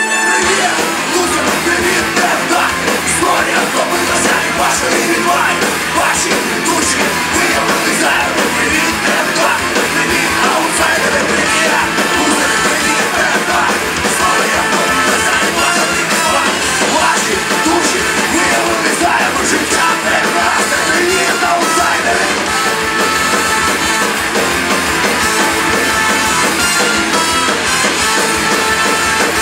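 Live ska-punk band playing loud and without a break: distorted electric guitars, drum kit and a trumpet over them.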